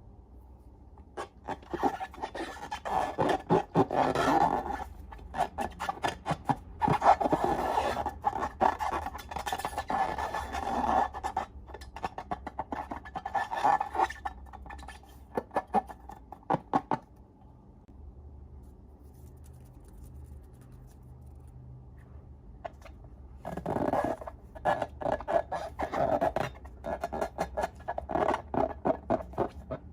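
Glossy slime being squished and worked by hand, in bouts of sticky, wet crackling clicks, with a pause of a few seconds past the middle.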